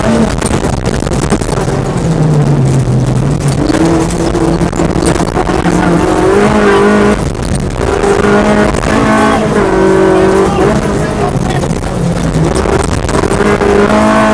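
Peugeot 205 kit car's engine heard from inside the cabin at speed, its revs climbing and dropping as it changes gear, with a brief lift off the throttle about seven seconds in. Short clicks of gravel run over the top.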